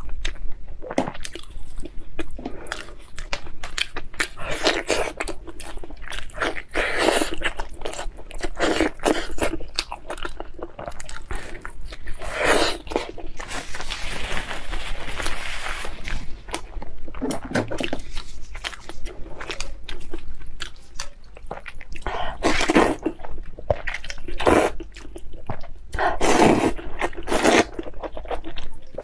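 Close-up eating sounds: biting and chewing a sauced lamb chop, with wet smacking and crunching throughout. About halfway a paper tissue rustles, and near the end noodles are slurped.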